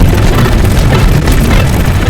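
Loud, dense, distorted rumbling noise with no clear pitch or rhythm, heaviest in the low end, continuing without a break.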